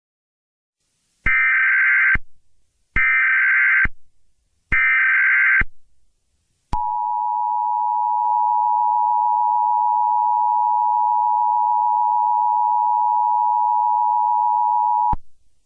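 Emergency Alert System alert tones: three short bursts of the SAME digital header, each under a second, then the steady two-tone attention signal held about eight seconds and cut off sharply. Together they mark the start of a broadcast emergency alert, here a flash flood warning.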